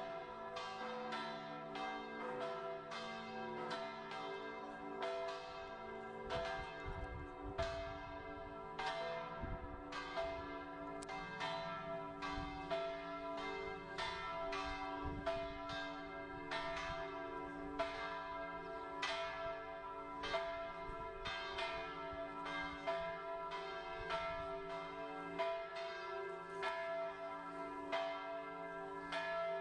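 Church bells ringing in a steady run of strokes, about two a second, each stroke ringing on into the next.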